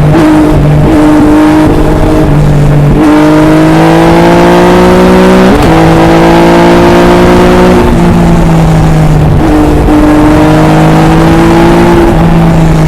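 Triumph Tiger 800 XRx's three-cylinder engine through an Arrow exhaust, heard from onboard the motorcycle: loud and continuous, its pitch stepping up and down several times through gear changes, with a sharp rise about halfway through. The sound cuts off at the very end.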